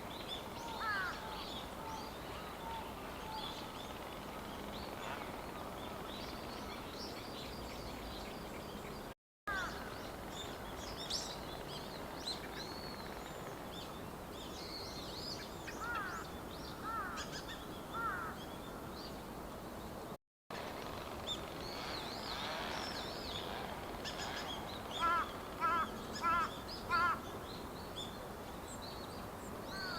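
Dusky thrush giving short calls over a steady background hiss, with higher chirps throughout and a quick run of about five louder calls near the end. The sound drops out briefly twice where the footage is cut.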